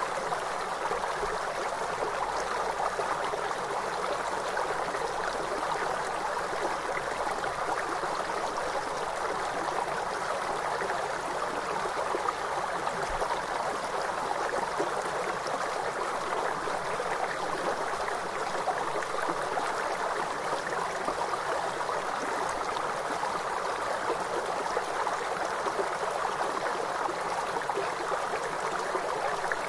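Flowing river water making a steady, even rushing sound with no change in level.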